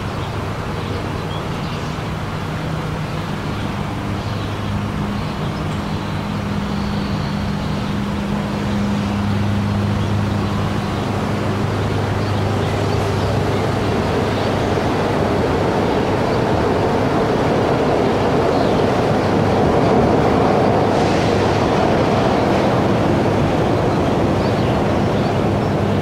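Monorail car running along its rail: a steady mechanical running noise with a low hum, growing gradually louder over the stretch.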